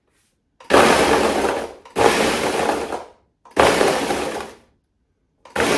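Ninja blender pulsed four times, each pulse about a second long with short gaps between, crushing dry pecan shortbread cookies into crumbs with a loud crunching; the fourth pulse starts near the end.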